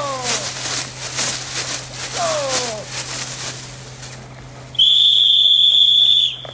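Sharp cracks of a split training stick, with two falling-pitch calls, then a single loud, steady whistle blast of about a second and a half near the end.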